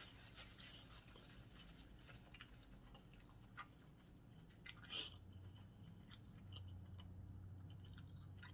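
Faint chewing of seafood, with scattered small clicks and crunches, a slightly louder one about five seconds in.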